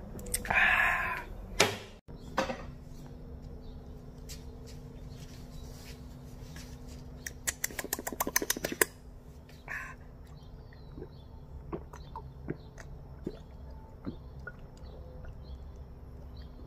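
Beer drinking from pint glasses, heard as a short loud breathy exhale after a swig about half a second in. A quick run of clicks comes around eight seconds in, and scattered small taps of glass handling and swallowing follow.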